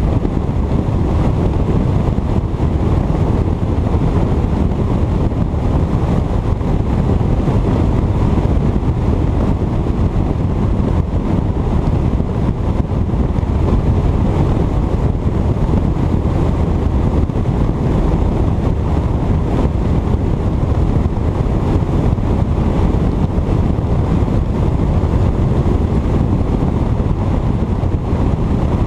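Steady wind rush on the microphone of a bass boat running at speed, mixed with the drone of its 150 hp outboard motor and the hull's water noise.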